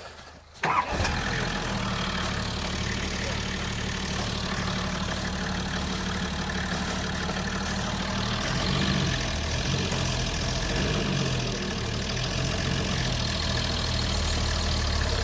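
A motor vehicle's engine running steadily, coming in abruptly about a second in; its note shifts up and down a few times past the middle.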